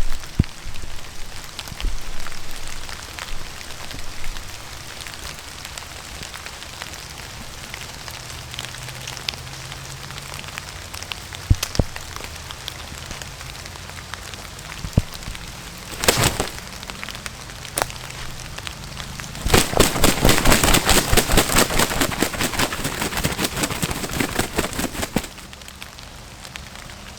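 Wet woods with a steady crackle of dripping water and scattered ticks. Past the middle comes about six seconds of loud, rapid thrashing and flapping in the leaves, a freshly shot wild turkey flopping on the ground.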